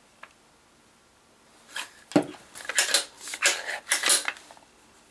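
Ramset powder-actuated nail gun worked by hand after oiling. A sharp clack comes about two seconds in, followed by about two seconds of metallic sliding, clacking and rattling.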